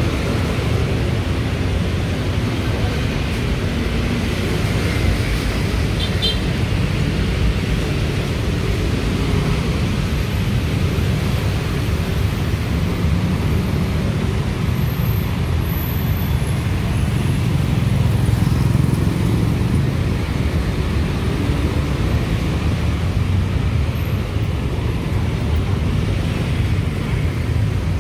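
Steady city road traffic: cars passing, with a constant low rumble.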